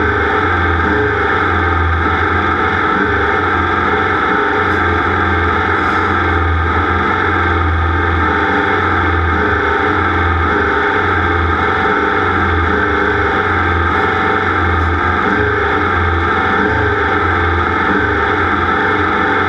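A race vehicle's engine running steadily at high revs, loud and distorted.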